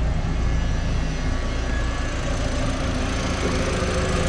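A 2005 VW New Beetle's 1.8-litre turbo four-cylinder engine idling steadily with the A/C switched on full, while the cooling fans stay off and the A/C compressor clutch is not engaged: the owner suspects a faulty cooling fan control module. A steady higher tone joins about three and a half seconds in.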